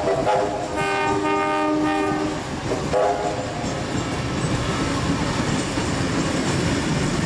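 A train horn sounds a chord in three blasts: a short one at the start, a longer one of about a second and a half, and a brief one about three seconds in. Under it runs the steady rumble and clickety-clack of passenger carriages rolling past.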